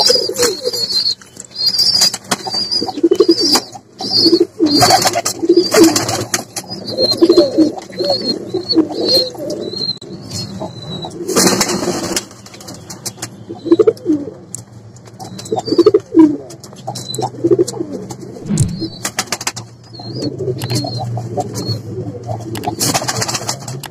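Domestic fancy pigeons cooing over and over, with a run of high chirps above them. A few short noisy bursts of wing flapping break in, the biggest about halfway through.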